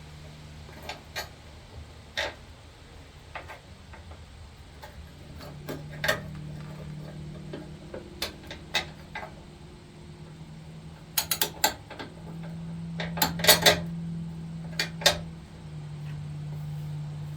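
Metal parts of a lawn tractor's idler pulley assembly clinking and tapping as they are handled and fitted, in scattered sharp clicks that come thickest in two quick clusters in the second half. A faint steady hum runs underneath.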